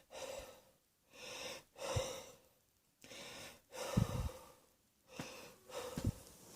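A person breathing heavily and unevenly while catching their breath from coughing: short noisy breaths in and out about once a second, a few of them with a brief low catch in the throat.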